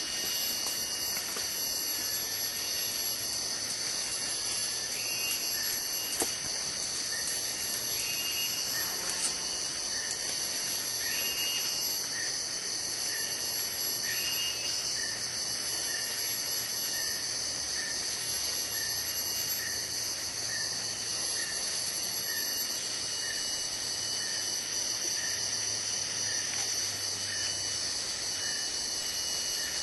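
Steady, high-pitched drone of forest insects. Over it, a short call repeats about once a second, and a few short rising whistles sound in the first half.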